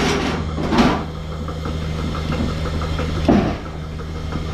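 Steady low machine hum, with a few short knocks in the first second and another a little after three seconds in.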